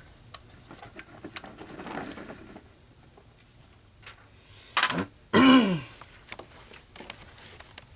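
A person clears their throat about five seconds in: a short rough burst, then a louder voiced grunt falling in pitch. Before it, faint clicks and taps of miniatures being moved on the gaming table.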